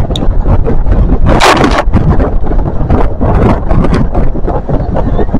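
Wind buffeting the camera's microphone: a loud, gusty rumble with a stronger burst about a second and a half in.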